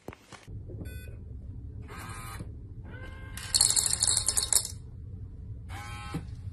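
Automatic pet feeder dispensing dry cat food: kibble clattering into its stainless steel bowl for about a second in the middle, over a steady low hum, with a short electronic beep about a second in.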